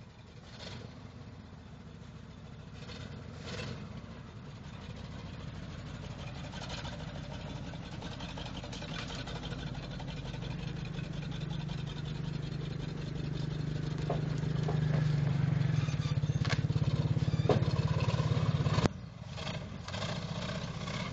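1979 Ford F-250's 351M V8 running rough after sitting unused for twelve years, growing steadily louder, then cutting out suddenly near the end.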